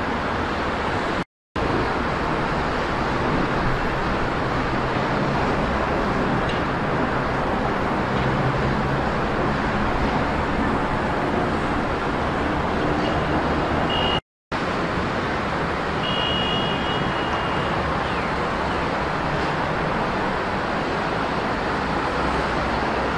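Steady roar of distant road traffic, an even wash of noise with a faint low hum. It drops out to silence twice for an instant, about a second in and again about halfway.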